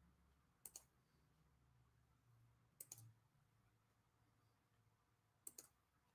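Three quick double clicks of a computer mouse button, about two and a half seconds apart, faint against near silence.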